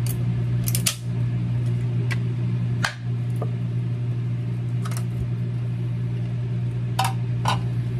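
A microwave oven runs with a steady hum. Over it come a few sharp clicks and taps from a metal Spam can as it is tipped and shaken over a wooden cutting board to turn the loaf out.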